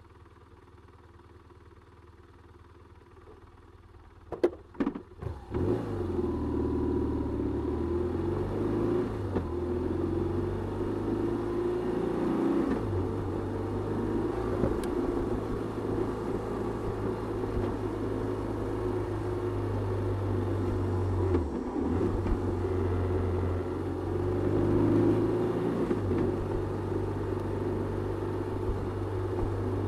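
A few sharp clunks about four seconds in, then a 2008 BMW R1200RT's boxer twin engine pulls away, rising in pitch as the motorcycle accelerates, and runs steadily at road speed.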